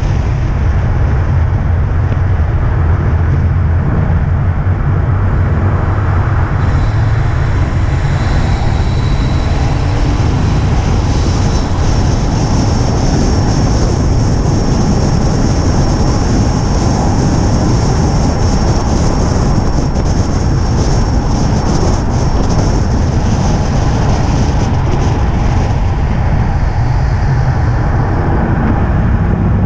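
Race car lapping a wet circuit, heard from onboard: a constant loud rumble of engine, tyre and wind noise. A thin high whine rides on top from about eleven to twenty-three seconds in.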